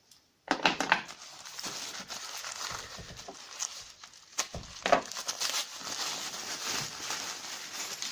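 Packing material crinkling and rustling as an item is unwrapped by hand, with a sharp crunch about half a second in and another just before five seconds.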